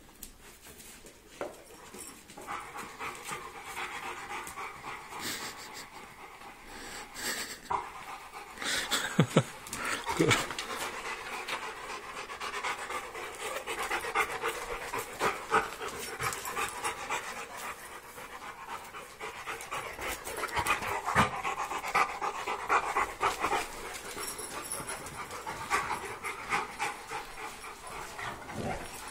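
Dogs panting hard and fast while they play-wrestle, with a few scuffling knocks.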